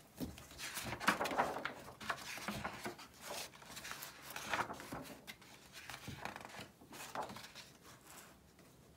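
Hardcover picture book being opened by hand, its cover and paper pages rustling and tapping as they are turned. The handling noises thin out near the end.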